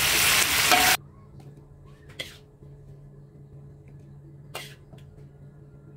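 Salted fish and chilies sizzling loudly in a wok while a metal spatula stirs. About a second in, the sizzle cuts off suddenly. What follows is quiet, with a faint low hum and two short knocks of the metal spatula as the fish is scraped out of the wok into a bowl.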